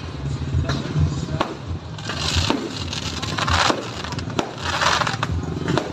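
Aerial fireworks going off: sharp bangs at irregular intervals, with several short bursts of crackling.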